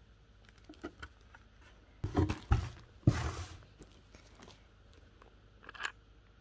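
Handling sounds of velvet dust-bagged handbags being lifted out of a cardboard box and set on the floor: two dull bumps with a rustle about two and three seconds in, and a light click near the end.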